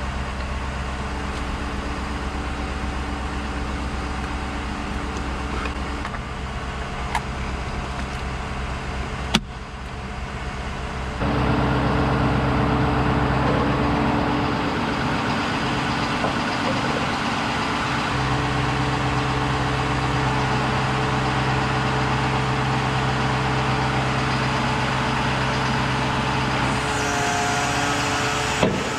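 Truck engine idling with a steady, even hum. It becomes louder about eleven seconds in, and there is a single sharp click about nine seconds in.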